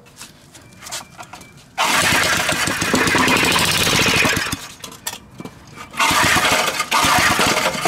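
Old Briggs & Stratton single-cylinder engine catching and running for about two and a half seconds, then dying, and catching again for about two seconds near the end. It runs only briefly, typical of an engine that is not drawing fuel through its diaphragm carburetor.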